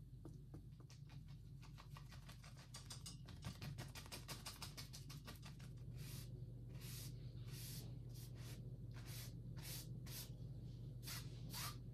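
A stiff bristle brush working oil paint: a rapid run of light ticks for the first few seconds, then slower scratchy strokes about twice a second as the brush is pulled down over the canvas to lay in reflections in the water.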